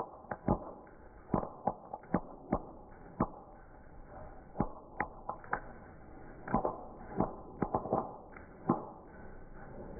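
Irregular sharp pops and crackles from firecrackers burning in a small fire, coming singly and in quick clusters.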